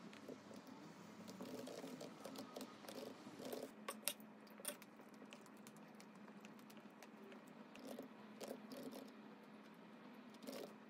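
Soft, irregular tapping of fingers typing on a compact keyboard with round plastic keys, with two sharper key clicks about four seconds in.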